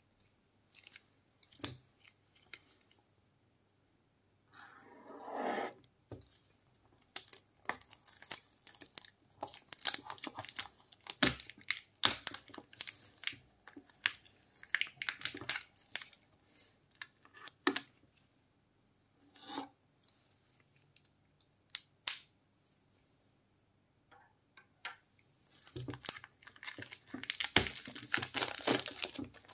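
Clear plastic shrink wrap on a watch box being punctured and torn open by hand: scattered clicks and a brief scrape, then irregular crackling and tearing of the film, ending in a dense stretch of crinkling as it is peeled off.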